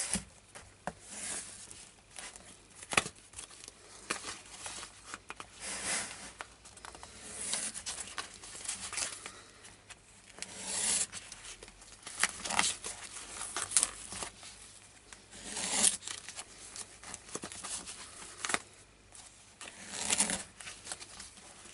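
Fabric cover of a Kevlar body-armour panel being cut with a knife and torn open by hand, in a run of irregular tearing and rustling strokes, with crinkling of the plastic-wrapped layers inside.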